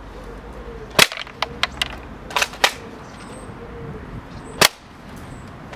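Spring-powered single-shot airsoft AK-47 being cocked and fired: a series of sharp mechanical clacks, the two loudest about a second in and near the end.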